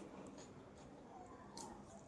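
Faint eating sounds: quiet chewing with a few soft wet mouth clicks, the clearest about one and a half seconds in.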